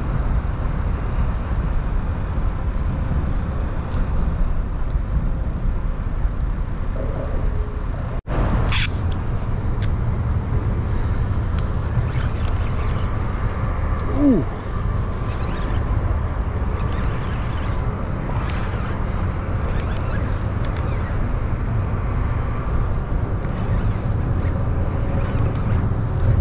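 A steady low rumbling noise throughout. In the second half a fishing reel is cranked in short runs about once a second as a fish, a black drum, is reeled in.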